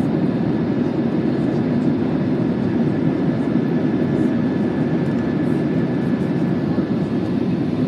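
Steady cabin noise of an Airbus A320-family jet airliner climbing after takeoff: engine and rushing-air noise, even and deep, with a faint thin steady whine above it.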